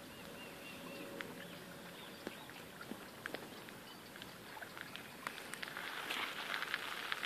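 Outdoor pond ambience with scattered bird chirps and faint clicks. From about six seconds in there is a busier stretch of rustling and crackling.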